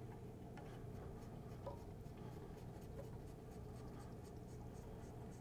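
Faint scratchy rubbing of fingers turning a Delrin spacer on its thread into the turntable chassis, finger tight, with a couple of light ticks, over a low room hum.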